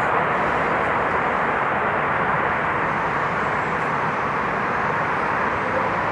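Steady, unbroken jet aircraft engine noise, with no change in pitch or level.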